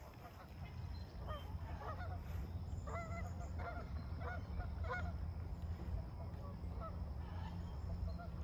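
Geese honking repeatedly, a run of short calls that is densest a few seconds in, over a steady low rumble.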